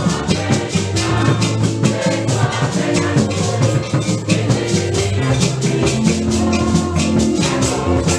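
Upbeat church music with a fast, steady beat of shaken rattles and drums over bass, with singing faintly in the mix.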